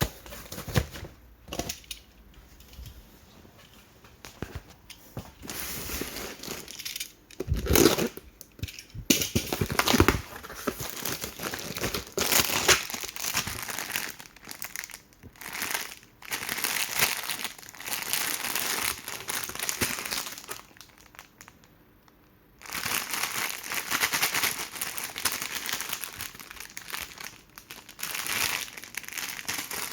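Plastic instant-noodle packaging crinkling and rustling as it is handled and unpacked, in irregular bursts with a short lull about three-quarters of the way through.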